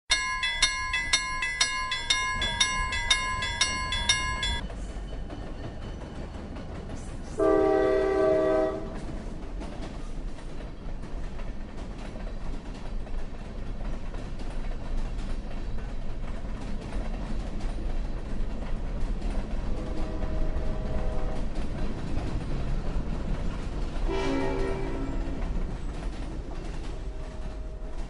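Railway crossing bell ringing about twice a second for the first four seconds or so. Then a train runs with a steady rumble and wheel clatter. Its horn sounds a loud blast about seven seconds in, a fainter one around twenty seconds and another around twenty-four seconds.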